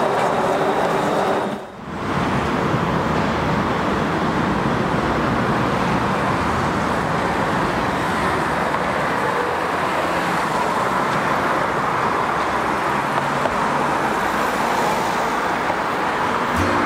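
Steady road traffic noise from cars and an articulated bus passing through a street intersection, with a brief drop in level about two seconds in.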